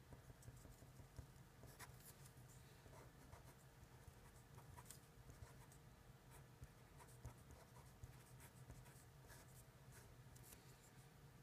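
Fine-tip marker pen writing on paper: faint, scattered scratches and small taps of the pen strokes over a low room hum.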